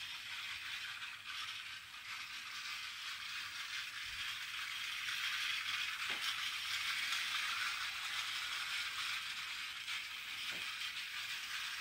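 Battery-powered miniature toy train's small motor and gears running as it travels around plastic track, a steady rattle. It grows a little louder about halfway through as it passes closest, with a couple of faint clicks.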